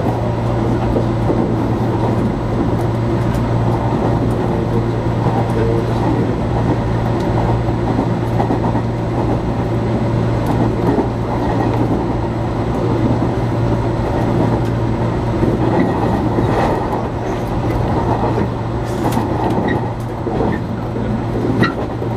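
A JR Kyushu 415 series electric multiple unit running at speed, heard from inside at the front behind the cab. It makes a steady rumble with a constant low hum, and a few light clicks come in the second half.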